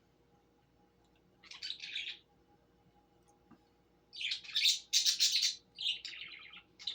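Pet bird chirping and squawking in short high-pitched bursts: one brief call about a second and a half in, then a run of several calls from about four seconds on.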